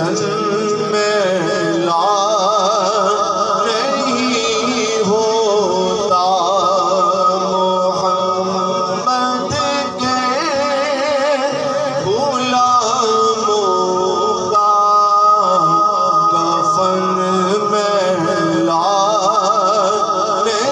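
A man singing a naat into a microphone, holding long, wavering notes.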